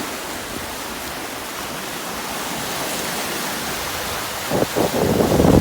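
Surf on Lake Baikal: a steady wash of waves breaking on the shore in a strong wind. About a second before the end, wind gusts buffet the microphone with a low rumble.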